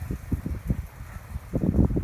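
Wind buffeting the microphone outdoors: an uneven low rumble of gusty thumps.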